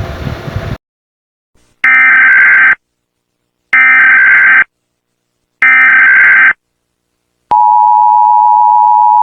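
Emergency Alert System tones: three short bursts of SAME header data, each about a second long with a second's gap between them. Then, about seven and a half seconds in, the steady two-tone attention signal begins and runs on past the end.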